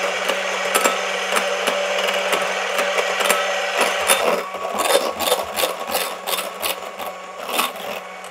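Electric hand mixer running steadily, its beaters whipping egg whites toward stiff peaks in a glass bowl. The beaters click and rattle against the bowl, more often in the second half, and the motor stops at the very end.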